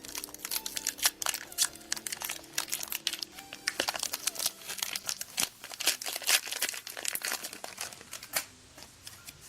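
Foil wrapper of a Pokémon TCG booster pack being crinkled and torn open: a dense run of crackles that thins out near the end.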